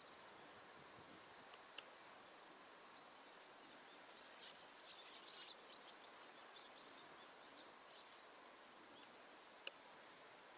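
Near silence: faint outdoor ambience with a steady hiss, a brief flurry of faint high-pitched ticks around the middle, and a few isolated faint clicks.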